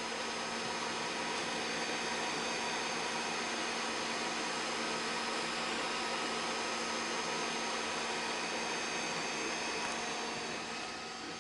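Creality CR-10S 3D printer running a print: a steady whir of its fans with several thin, steady whining tones over it. The sound gets a little quieter near the end.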